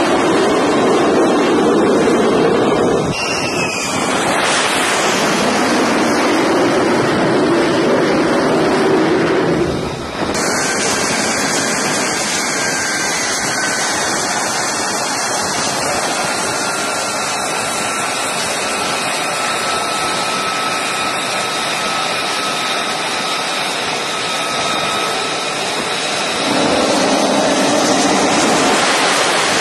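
Jet engine noise on an aircraft carrier's flight deck: a loud, steady rush with faint steady whining tones from an F-35C's Pratt & Whitney F135 turbofan running while the jet sits on the catapult. The sound changes abruptly about ten seconds in, and a deeper rush comes up near the end.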